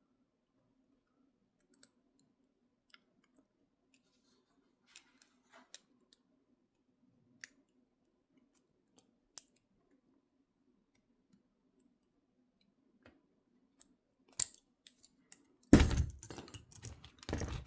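Faint, scattered metallic clicks of a bobby pin working inside the lock of a Peerless 700C handcuff, about one every second or so. Near the end come several louder metal clanks and rattles.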